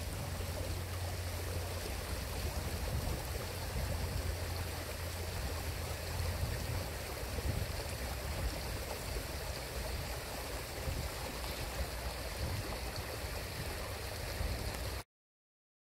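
Rain-swollen stream water flowing steadily, a continuous rush of running water over a low rumble. The sound cuts off abruptly near the end.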